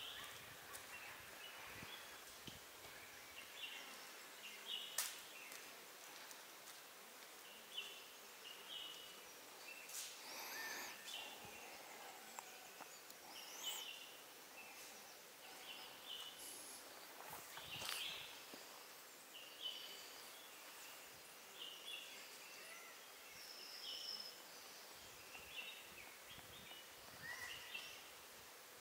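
Faint forest ambience with scattered short bird chirps and calls, and a few sharp clicks.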